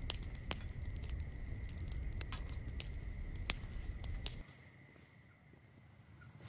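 Wood fire crackling, with irregular sharp pops over a low rumble and a faint steady high tone. About four seconds in it cuts off and only a fainter background remains.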